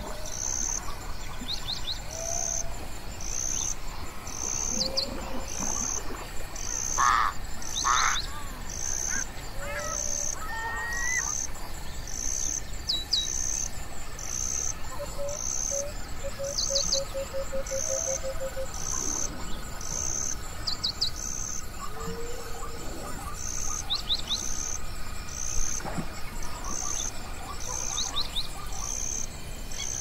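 Outdoor wildlife soundscape: an insect chirping in a high, even pulse about every second and a half, with assorted birds calling and chirping over it. Two louder calls come about seven and eight seconds in, and a quick run of repeated notes comes midway.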